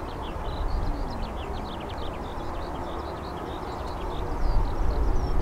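Boeing 767-300 jet engines at takeoff power, a low rumble that grows louder near the end as the airliner rolls down the runway toward the listener. Short high bird chirps run throughout.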